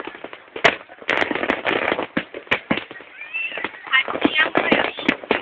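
Fireworks going off: one sharp bang a little over half a second in, then a rapid run of crackling reports, with crowd voices mixed in.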